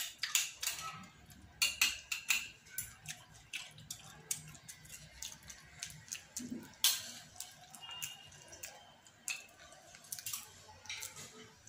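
Boiled green soybean pods being handled, shelled and eaten, and jostled in a plastic colander: irregular sharp clicks and crackles, some in quick clusters.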